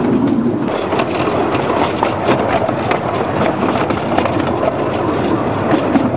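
15-inch-gauge miniature railway train running, heard from a carriage: a steady rumble of wheels on the track with many quick clicks.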